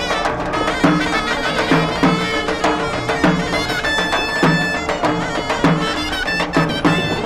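Egyptian folk music: a shrill reed pipe plays a wavering melody over a steady drone, with a drum beating regularly underneath.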